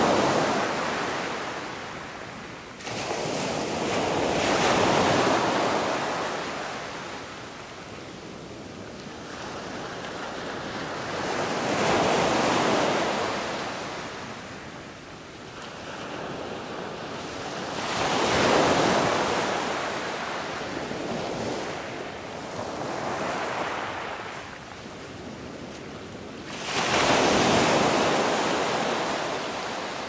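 A rushing noise that swells and fades in slow waves, peaking about every six to nine seconds, with no pitched sounds in it.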